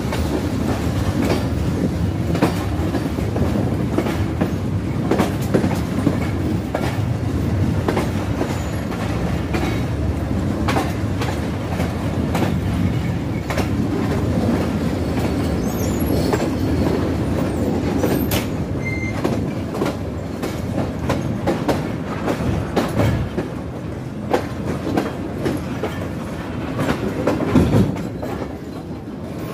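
Pakistan Express passenger coaches running through a junction yard, heard from aboard the moving train. The wheels give a steady rumble with frequent clicks and clacks as they pass over rail joints and points.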